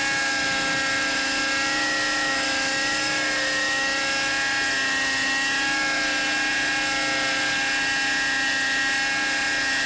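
RC helicopter's RJX Extreme 50 nitro engine and rotors running steadily in a hover, a high whine with a slight wavering in pitch around the middle. The engine is being broken in.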